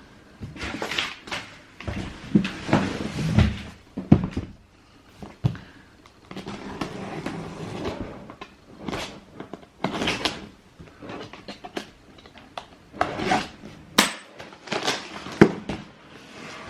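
Cardboard shoeboxes being handled, with irregular rustling and scraping broken by sharp knocks of the boxes and lids.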